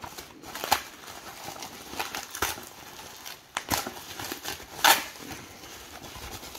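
Bubble wrap being handled and crinkled by hand, giving irregular plastic crackles with a few sharper snaps, the loudest about five seconds in.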